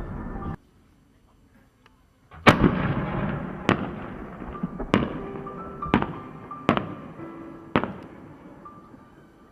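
Fireworks: after a brief near-silence, a loud shell burst with a long fading rumble, then a string of five sharp bangs about a second apart as the rumble dies away.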